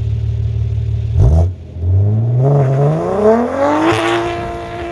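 BMW 4 Series coupe's B58 turbocharged straight-six running with a steady low exhaust drone, then a sharp, loud burst about a second in. The car pulls away with the engine note rising smoothly for about two seconds, then levels off and fades as it drives off.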